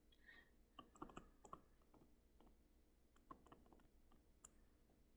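Near silence with faint, scattered clicks of a stylus tapping on a tablet screen while handwriting.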